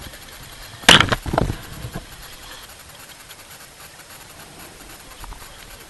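Bow wave of a Farr 36 racing sailboat splashing up over the bow onto the foredeck crew's legs: a sudden loud burst of spray about a second in and a second splash just after, over a steady rush of wind and water.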